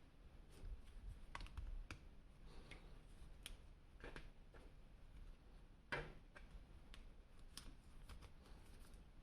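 Faint clicks and scrapes of action figure packaging being handled and opened, with a louder scrape about six seconds in.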